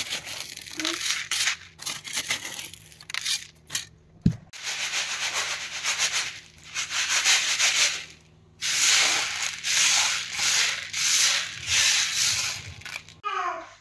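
Dry green mung beans rustling and sliding across a woven bamboo tray as the tray is shaken and the beans are spread by hand while they are picked over: a hissing rattle in repeated bursts, with short pauses about four and eight seconds in. A single dull knock sounds about four seconds in.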